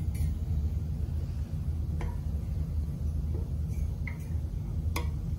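Banjo tuning peg being turned by hand to wind on a new string, giving a few faint ticks about two seconds in and again near the end, over a steady low hum.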